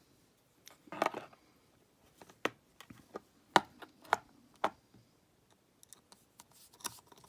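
Irregular sharp clicks and taps of small metal lock-cylinder parts being handled and set down, about a dozen, with a small cluster about a second in.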